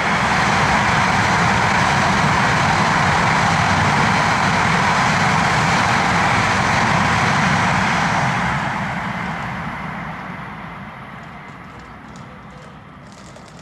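Tohoku Shinkansen bullet train passing through the station: a loud rushing noise that holds for about eight seconds, then fades away.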